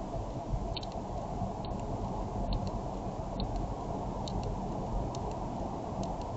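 Steady in-cabin road and engine noise of a BMW driving at speed, picked up by the windscreen-mounted dashcam's microphone. Faint short ticks recur a little under once a second.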